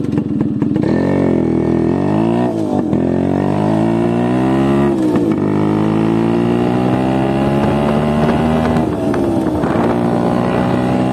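Yamaha RX two-stroke single-cylinder motorcycle accelerating with the baffle (dB killer) pulled out of its cut muffler; the engine note climbs and drops back three times as the rider shifts up through the gears, then climbs again.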